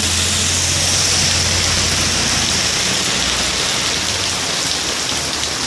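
Heavy rain pouring onto a wet street and pavement, a dense steady hiss. A low rumble of passing traffic sits under it and fades after about two seconds.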